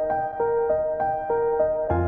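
Background music: a soft piano-like melody of evenly spaced notes, about three a second.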